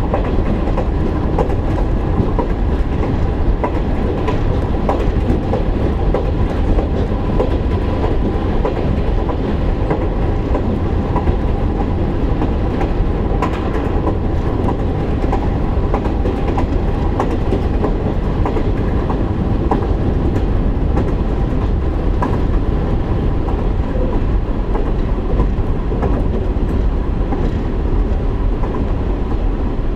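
KiHa 147 diesel railcar running between stations, heard inside the cabin: a steady drone of diesel engine and wheels on rails, with scattered clicks from the wheels crossing rail joints.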